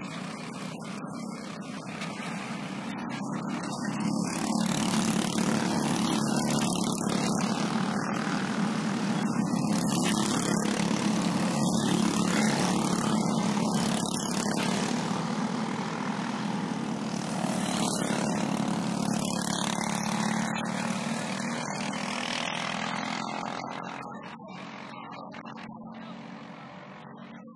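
Racing karts' Briggs & Stratton 206 single-cylinder four-stroke engines running at race speed on track. Their steady drone grows louder about four seconds in and fades away after about twenty-three seconds.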